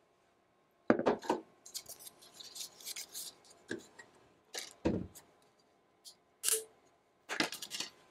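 Irregular clicks, knocks and crinkling of plastic being handled as a hard drive is unpacked from its plastic packaging, beside a plastic drive caddy. The sounds start about a second in, with the heaviest knocks then and again about five seconds in.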